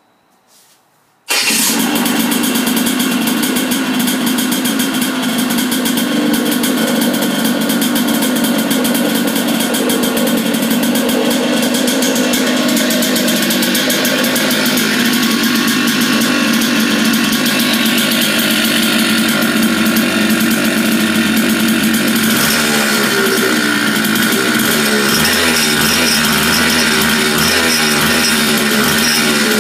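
IAME Gazelle two-stroke Bambini kart engine, air-cooled, started by its electric starter box: it catches suddenly about a second in and then runs steadily at idle. About two-thirds of the way through, the character of its sound shifts.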